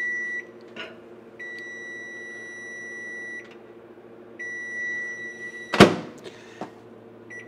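Combination microwave air fryer sounding its hot-pan warning: long, steady high beeps of one to two seconds with short gaps, over a steady low hum from the appliance. A single sharp clack about six seconds in ends the beeping, and one more short beep comes near the end.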